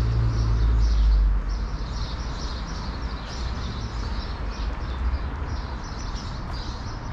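Small birds chirping over and over in the trees, over a steady hum of city traffic. A heavy low rumble drops away about a second and a half in.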